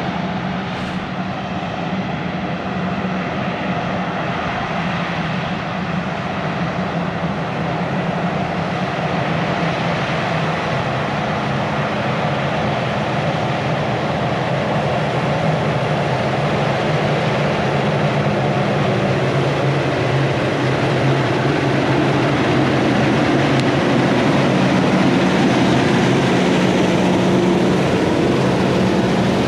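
Heavy farm machinery running steadily in the field: a large diesel engine hum over the noise of the working machine, growing slightly louder in the second half.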